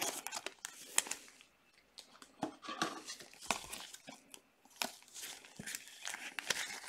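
Gloved hands handling trading cards and plastic card holders: irregular crinkling and rustling with a few light clicks.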